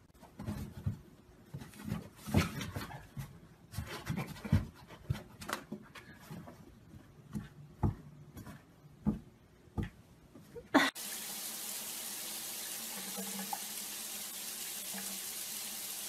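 Irregular taps and knocks of a cat's paws batting at a toy poking out of a slot in a cardboard box. About eleven seconds in, a sudden cut to the steady hiss of a tap running into a bathtub.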